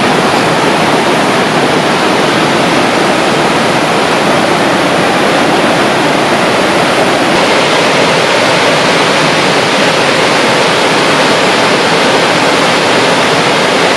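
A small stream tumbling over a little waterfall, close by: a steady, loud rush of water.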